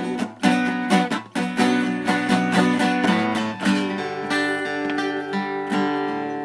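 Acoustic guitar strumming the closing bars of a country song, then a final chord left to ring and fade out.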